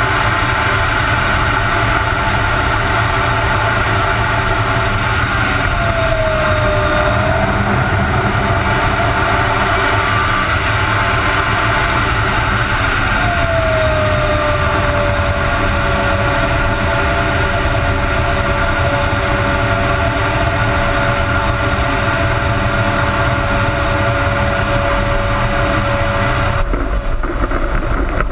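Model jet turbine of a radio-controlled Aermacchi MB-339 whining under a steady rush of airflow as it is throttled back to land. The whine falls in pitch about five seconds in and again around thirteen seconds, then holds steady at low power. The higher part of the sound cuts off suddenly near the end as the model rolls along the runway.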